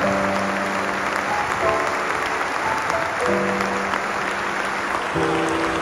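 Audience applauding, with soft background music of slowly changing held chords laid over the clapping.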